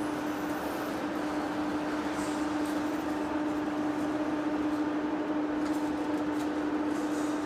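Heavy-duty face lathe running, a steady hum with one constant tone over a continuous machine noise.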